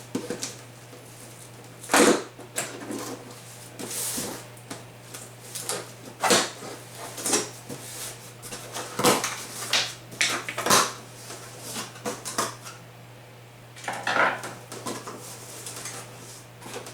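Irregular knocks, clinks and rustling as the parts and packing of a boxed Lee Classic Turret Press kit are taken out of the box and set down, over a steady low hum.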